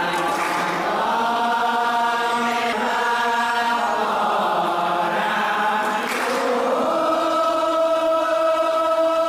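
Several men chanting a devotional verse together in the gayan singing of an Assamese gayan-bayan, in long held notes that change pitch every couple of seconds and settle into one long steady note near the end.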